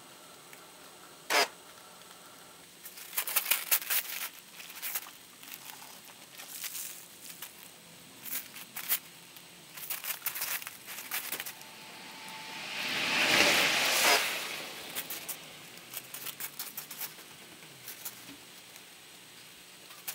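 Scattered crackles, clicks and rubbing from hand-washing a van's soapy bodywork, with a short hiss that swells and fades about thirteen seconds in.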